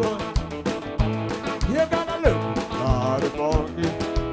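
Upbeat country-style song playing, with guitar and a steady drum beat.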